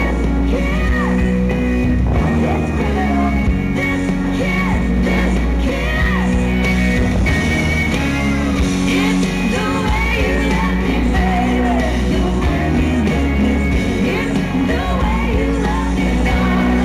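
Music: a song with a singing voice over steady bass notes.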